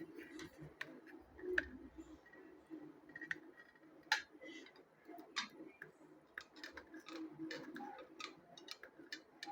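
Faint, irregular clicks and light taps of 18650 lithium cells being handled, knocked together and set down on a table as they are sorted into groups.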